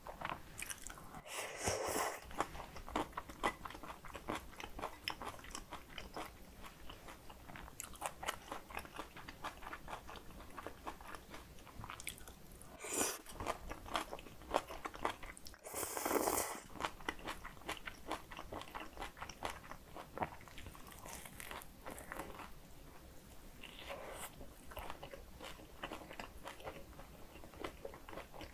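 Close-miked chewing of cold spicy kimchi noodles and a dumpling: dense wet chewing and biting. Noodle slurps stand out three times, about two seconds in, about thirteen seconds in and about sixteen seconds in.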